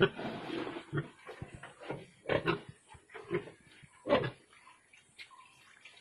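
Pigs grunting: a longer, noisier sound in the first second, then a series of short grunts about one a second, the loudest a little over four seconds in.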